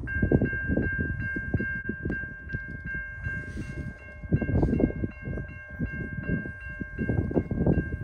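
Locomotive bell ringing, struck about two and a half times a second from the start, over the rumble of a passing CN freight train led by SD75I 5680.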